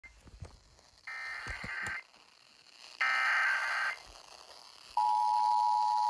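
Emergency Alert System test played through a portable radio's speaker: two one-second bursts of the EAS digital data header (SAME), a second apart, then about five seconds in the steady two-tone EAS attention signal begins. A few faint knocks come before the first burst.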